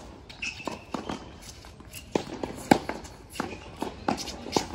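Tennis groundstroke rally: racquets striking the ball and the ball bouncing on a hard court, a string of sharp pops with the loudest strike about two and a half seconds in, and the players' footsteps between shots.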